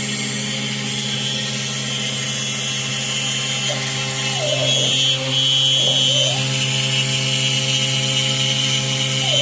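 Queenbee PRO CNC router running and cutting wood: a steady spindle whine over cutting noise, with short rising-and-falling whines from about four to six seconds in and again near the end.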